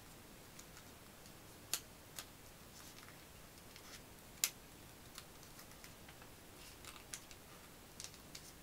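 A white paper pop-up card being folded and creased by hand: faint paper crinkles and a few sharp clicks of the folds, the two loudest about two and four and a half seconds in.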